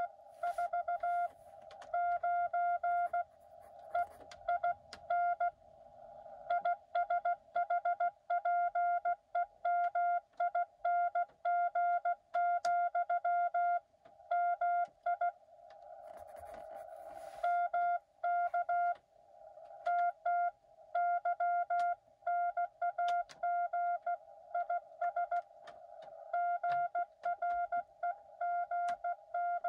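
Morse code tones from a Xiegu X6100 transceiver: a single beeping pitch keyed on and off in quick dots and dashes, in runs with short pauses between them. A narrow hiss of band noise fills the gaps.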